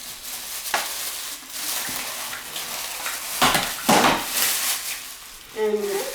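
Plastic packaging crinkling and rustling as vacuum cleaner parts are taken out of their bags, with a few sharper crackles and light knocks of plastic pieces.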